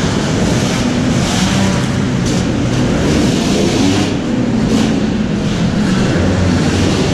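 Motocross dirt bike engine running under the rider, heard loud and rough through the on-board camera, with other dirt bikes on the track mixed in.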